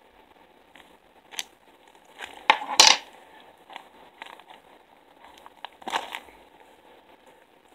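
Clear plastic packaging bag of fly-tying material crinkling and rustling as it is handled, in a few irregular bursts, the loudest about three seconds in and another near the end.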